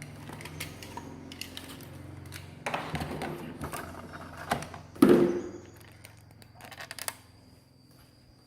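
Small hard objects being handled and set down: scattered clicks and rattles, a loud knock about five seconds in, and a quick run of clicks around seven seconds.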